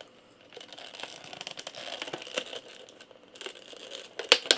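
Clear plastic blister packaging crinkling and crackling as it is handled, with two sharper plastic clicks near the end.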